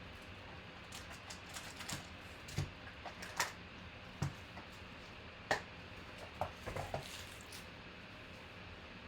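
Irregular light clicks and taps of trading-card boxes and packs being handled and opened on a table, with a handful of sharper knocks spread through.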